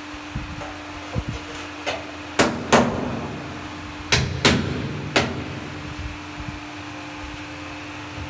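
Hand slapping and tapping ceramic wall tiles to bed them on the wall: about eight sharp knocks, the loudest in two close pairs near the middle, over a steady low hum.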